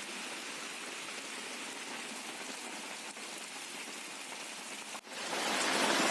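Heavy rain falling steadily. About five seconds in it cuts abruptly to a louder stretch of rain.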